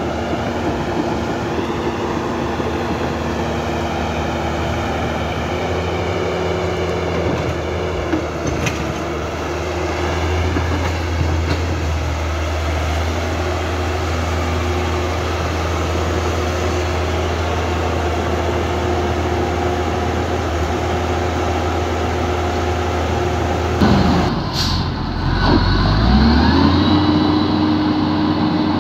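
Steady hum and whine of a Huina remote-control toy excavator's electric motors and gearboxes as it digs sand. Near the end the hum breaks off and a new whine rises and levels out, from a toy RC wheel loader.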